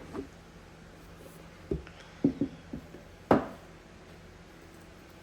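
Box and packaging being handled while a product is unboxed: a few short knocks and taps, the loudest about three seconds in.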